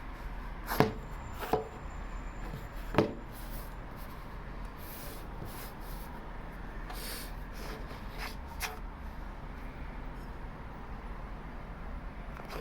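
Handling sounds from unboxing a phone: three sharp knocks in the first three seconds, then a couple of fainter clicks later on, over a steady low hum.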